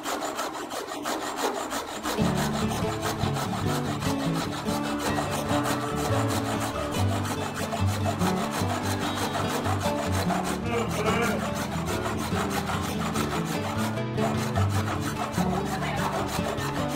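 Hand sawing with a wooden frame saw, the blade rasping back and forth in steady strokes through a wooden panel. Background music comes in about two seconds in and runs under the sawing.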